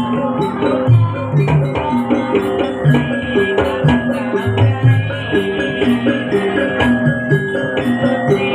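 Live Javanese jaranan gamelan accompaniment: low drum strokes and struck bronze pitched gongs and metallophones playing a fast repeating pattern, with a sharp metallic click on most beats and a held high note over the middle of the passage.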